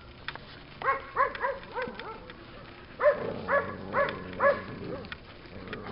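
Dog barking in two quick runs of short barks, about a second in and again from three seconds in.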